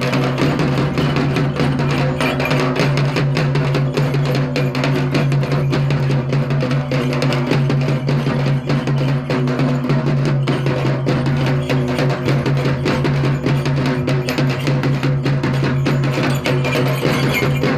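Large barrel drums (dhol) beaten with sticks in a fast, steady, dense rhythm, over a steady low hum.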